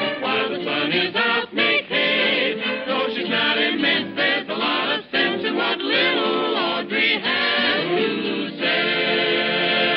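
Vintage cartoon opening-title music: a choir singing over an orchestra. The music settles into a long held chord near the end.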